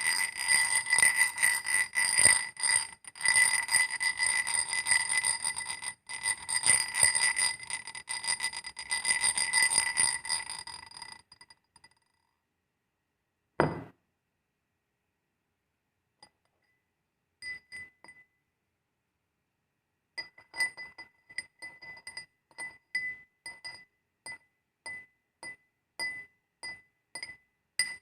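Glass rubbing and clinking against iron with a clear, steady ringing tone. Dense rapid scraping strokes run for about the first eleven seconds. A pause follows with one sharp knock. From about twenty seconds in there is an even run of short ringing clinks, about two a second.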